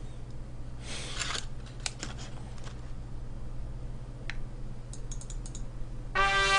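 Quiet mouth sounds of eating a fried cheese stick: scattered small clicks and a brief rustle about a second in, over a low steady hum. A musical tone starts just before the end.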